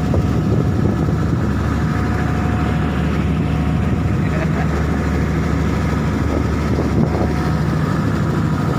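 Boat engine running steadily at an even speed, a constant drone.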